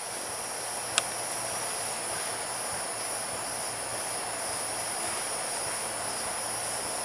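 Steady, high-pitched drone of an insect chorus, with one sharp click about a second in.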